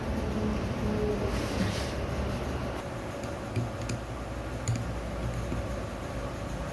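Steady low background hum in a workshop, with a brief hiss about one and a half seconds in and a few light clicks in the middle, as turbocharger parts are handled during reassembly of the core.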